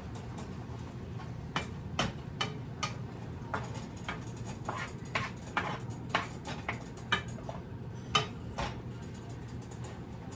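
Wooden spoon knocking and scraping in a skillet of cooking ground beef: irregular sharp clicks, busiest in the middle and thinning out near the end.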